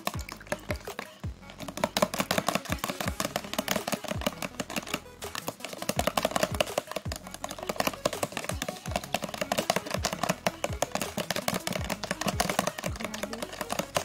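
Metal spoon beating a raw egg in a plastic container: a fast run of clicks and taps of the spoon against the plastic, over background music with a steady beat.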